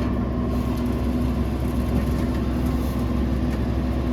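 Diesel engine of a John Deere combine running steadily at a constant pitch while the combine creeps slowly forward.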